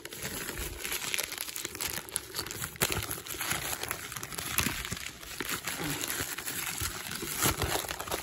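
Plastic mailer and bubble wrap being torn open and handled: continuous crinkling and rustling with many small crackles.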